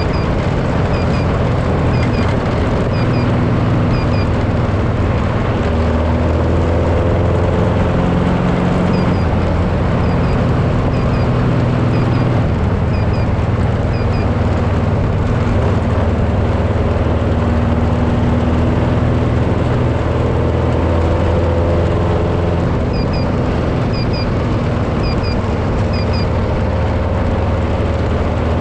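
A vehicle engine running steadily while driving, loud, its pitch drifting slightly with speed. Over it, a small high double chirp repeats about once a second in runs of four to six.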